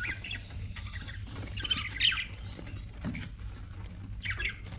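Budgerigars chirping and chattering in short, scratchy, gliding calls, with the loudest bursts about two seconds in and again near the end, over a steady low hum.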